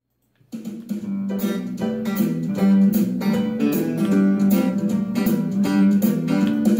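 Telecaster-style electric guitar playing a lively country and western swing tune over a steady beat, starting about half a second in.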